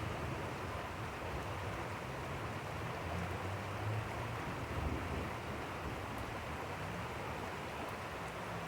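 Steady rushing of fast-flowing, rain-swollen water with rain falling, an even hiss with a low rumble underneath.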